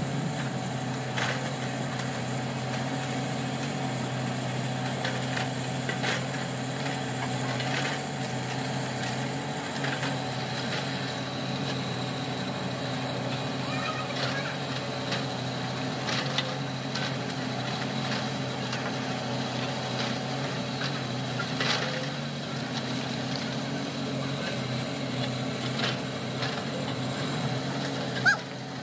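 Excavators' diesel engines running steadily, with scattered metal knocks and one sharper knock near the end.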